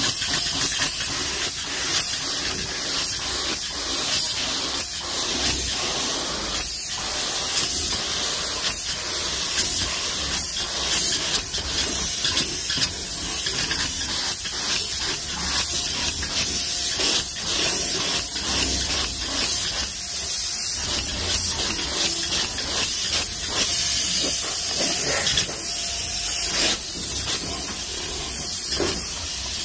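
Spray foam gun hissing steadily as it sprays two-component rigid polyurethane foam.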